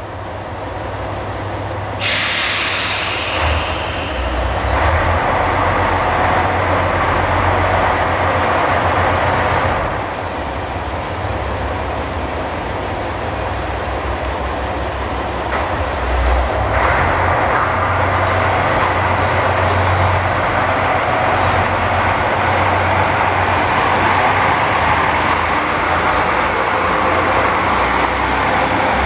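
JR Shikoku 1000 series diesel railcars pulling away. A loud hiss of the air brakes releasing starts suddenly about two seconds in and fades within a couple of seconds. Then the diesel engines run up under power, ease off around ten seconds in and build again from about seventeen seconds, over a steady low rumble.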